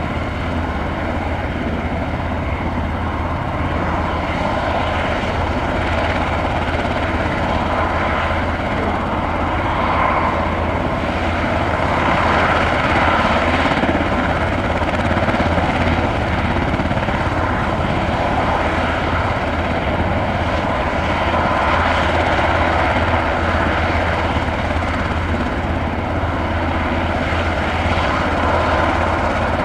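Sikorsky S-92 helicopter running on the ground with its rotors turning: a steady turbine noise over a low, even rotor beat, rising slightly in level partway through.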